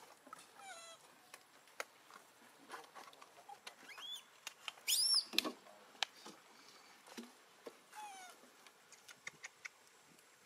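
Macaques calling: a few short squeaky coos, some falling in pitch, and one louder squeal that rises and falls about five seconds in, over scattered small clicks and rustles.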